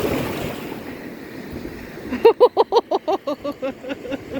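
Sea surf washing on the beach, with wind on the microphone. About two seconds in comes a rapid run of about a dozen short pitched calls, fading and dropping slightly in pitch.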